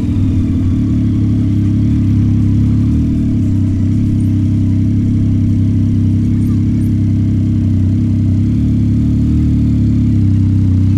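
Yamaha MT-09 SP's 890 cc inline-three engine running at a steady low pitch while the motorcycle is ridden.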